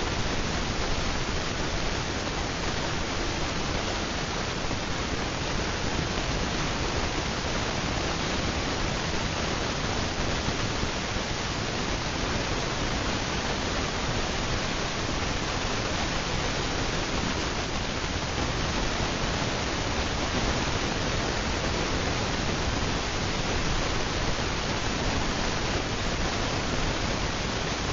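Steady, even hiss of a Hunter low-profile ceiling fan running, with no distinct motor hum or ticking.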